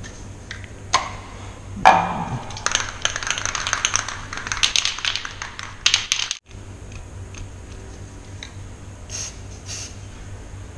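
Aerosol spray paint can being shaken, its mixing ball rattling rapidly for about three and a half seconds, after a couple of clicks as the can is handled. Near the end, a few faint short hisses of spray.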